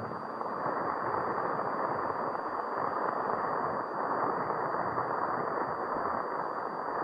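Steady hiss of transcription-disc surface noise in a gap between program segments, a dull even rush without tones or clear clicks.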